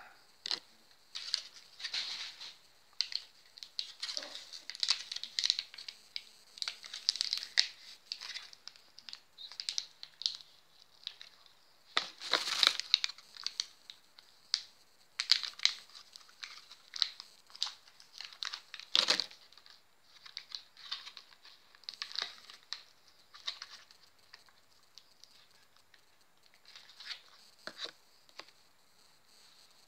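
Foil-and-plastic blister pack of tablets being handled and pressed open: irregular crinkling and crackling with sharper tearing pops, the loudest about twelve and nineteen seconds in, dying away near the end.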